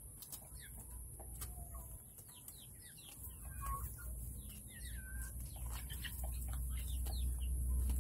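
A small flock of Rhode Island Red and Black Australorp chickens clucking softly and giving many short, high chirping calls. A low rumble builds under them near the end.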